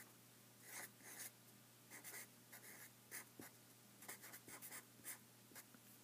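Felt-tip marker writing on paper: a run of faint, short scratchy strokes as words are written by hand.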